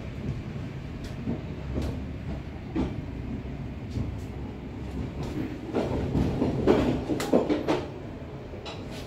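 Passenger train's wheels rolling slowly over rail joints and station points, a low rumble with separate clacks. The clacks come about one a second at first, then bunch into a louder run of knocks about six to eight seconds in.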